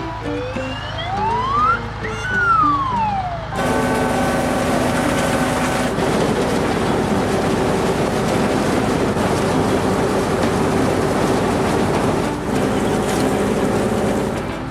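A cartoon siren sweeps up in pitch and back down once over background music. Then a loud, steady rushing noise starts suddenly and runs on under the music.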